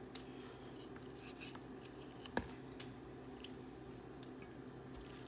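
Faint wet squishes and soft clicks of raw chicken pieces being handled in a plastic bowl, with one sharper tap about two and a half seconds in, over a steady low hum.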